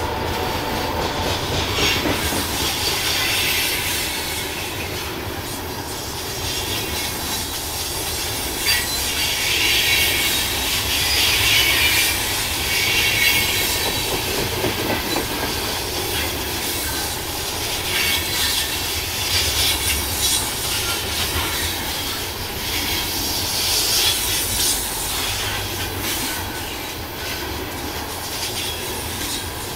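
Freight train cars rolling past on curved track: steel wheels squealing against the rail in high-pitched waves that come and go, over a steady rumble and clickety-clack of wheels over rail joints.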